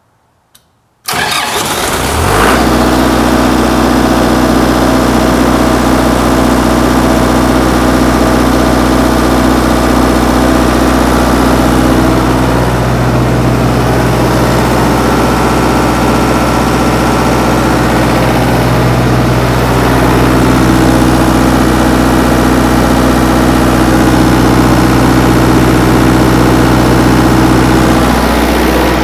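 Kubota diesel generator engine starting after a glow-plug preheat: a faint click, then a brief crank that catches almost at once. It settles into running steadily at a constant governed speed.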